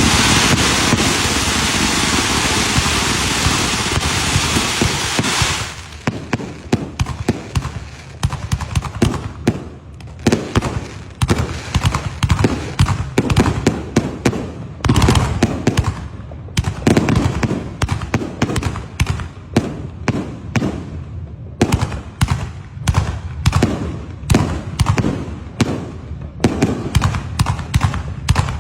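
Fireworks: a dense, continuous hissing spray for about the first five seconds, then a long irregular run of sharp bangs and cracks, several a second, some louder than others.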